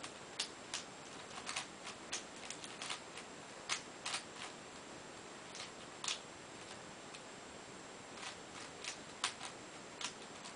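Plastic clicking of a Cube4You 3x3x7 cuboid puzzle as its layers are twisted by hand, in irregular runs of sharp clicks with a pause of about two seconds in the middle. A steady hiss lies underneath.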